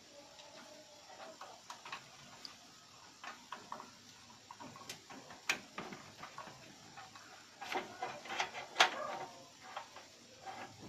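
Power-supply cable connectors being unplugged and handled inside an open steel PC case: scattered small clicks and rattles, with a busier flurry of clicks and one sharp loud click near the end.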